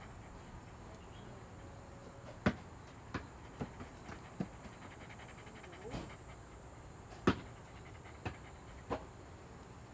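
Dog panting softly, with a string of irregular sharp clicks; two of the clicks, about two and a half seconds and about seven seconds in, stand out as the loudest.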